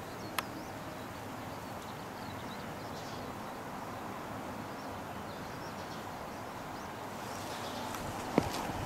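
Outdoor background with faint chirping birds and no engine running. A sharp click comes just after the start, and a louder tap about a second before the end.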